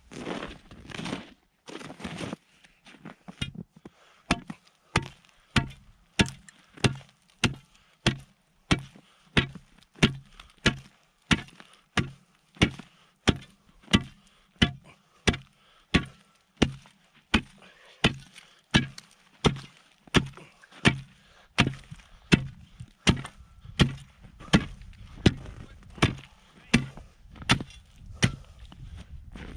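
Repeated hand chopping into pond ice with a heavy tool: steady sharp strikes, about one and a half a second, each a dull thud with a crack.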